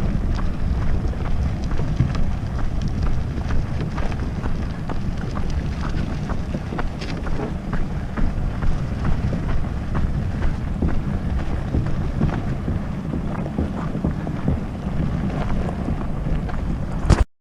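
Wind buffeting the microphone, an uneven low rumble, with small clicks and taps scattered through it; the sound cuts off suddenly near the end.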